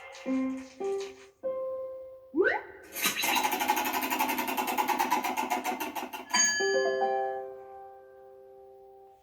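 Cartoon soundtrack music with sound effects: a few short notes, an upward slide about two and a half seconds in, a fast rattling whir for about three seconds, then a held chord that fades away.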